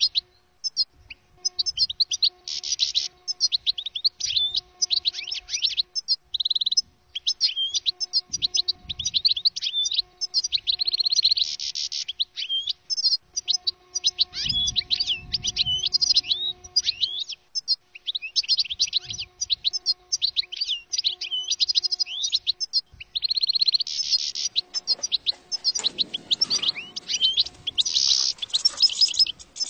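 European goldfinch song: a fast, almost unbroken run of high twittering, trilled and tinkling notes, with only short breaks between phrases.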